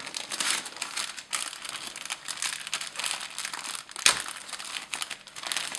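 Clear plastic parts bag around a plastic model kit's sprue crinkling as it is handled, with one sharp click about four seconds in.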